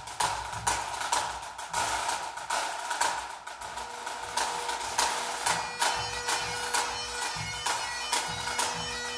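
Small pipe band playing: snare, tenor and bass drums beat sharp strokes, and about four seconds in the Great Highland bagpipes' steady drones settle in under the chanter tune, with the drums carrying on.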